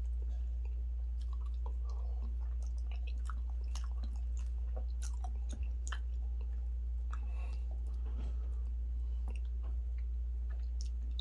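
Close-miked chewing and wet mouth sounds of someone eating fufu and spicy turkey stew: irregular smacks and clicks, over a steady low hum.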